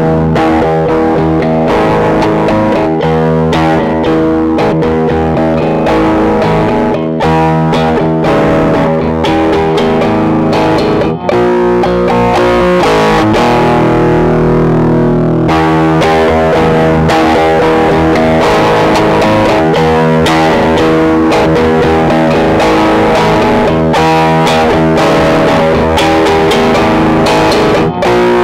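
Electric guitar, a PRS Swamp Ash Special, playing a looped chord riff from a Boss RC-20 looper through a Jim Kelley Line valve amp and Celestion Creamback speaker, with a crunchy, mildly distorted tone. About halfway through, one chord is held ringing for a couple of seconds before the riff picks up again.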